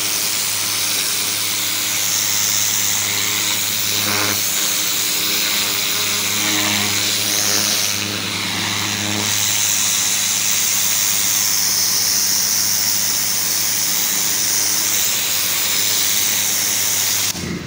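Gas-engine pressure washer running steadily, a constant engine drone with a high hiss over it. Its pitch wavers a little partway through.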